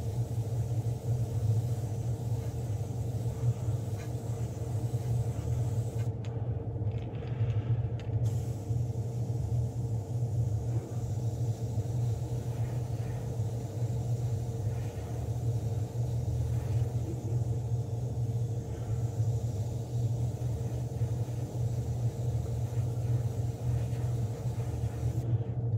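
Steady low motor hum that keeps an even level throughout.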